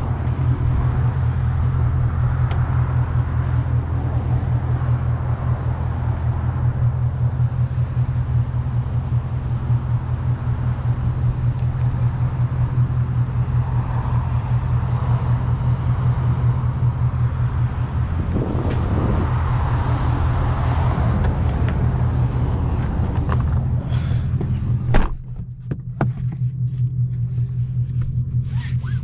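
2021 Mustang GT's 5.0 L V8 running steadily with a low rumble and no revving. About 25 seconds in there is a sharp knock, after which the engine rumble goes on with less background noise above it and a few light clicks.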